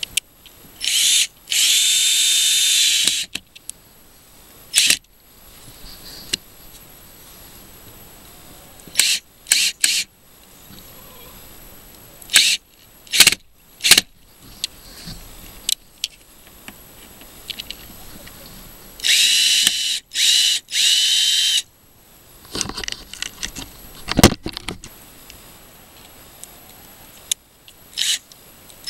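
Power drill driving long screws through a brass door hinge into wood. There are two runs of a steady high motor whine, about a second in and again near twenty seconds in, each a couple of seconds long with brief stops. Short clicks and bumps of handling and trigger blips come between them.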